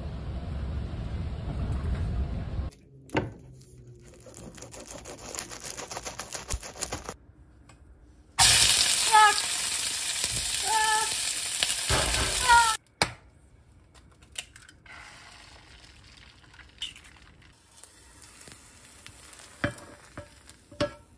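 Shredded cabbage and enoki mushrooms frying in a nonstick pan: a loud sizzle for about four seconds in the middle, with the vegetables being stirred, after a quieter hiss. At the start a low rumble, as inside a moving bus, and near the end a few light clicks and taps.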